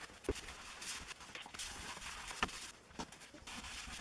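Cloth rubbing over the painted steel back plate of an IBM Model F keyboard, with three sharp knocks of the plate against the wooden bench, the loudest about halfway through.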